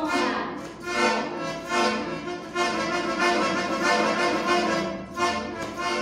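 Small toy accordion squeezed and pulled, playing a run of reedy chords that change about once a second.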